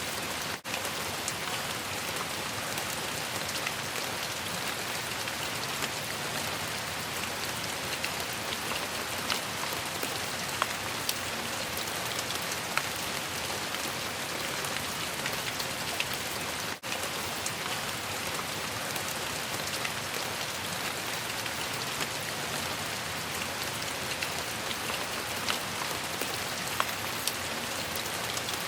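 Steady rainfall, an even hiss of rain with scattered sharper drop taps. It drops out for an instant twice, about half a second in and again about halfway through.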